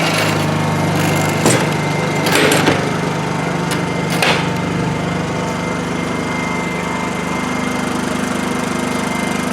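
Honda EU2000i inverter generator's small four-stroke engine settling from full throttle to a lower, steady speed and running on. A few short knocks and rustles come about one and a half, two and a half and four seconds in.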